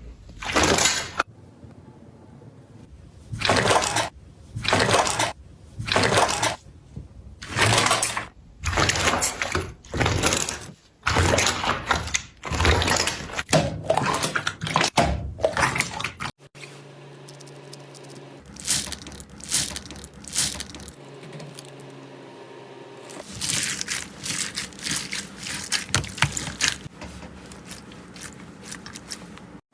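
Slime being handled: loud wet squelching and popping sounds about once a second, then after an abrupt cut a quieter run of short, sharp clicks.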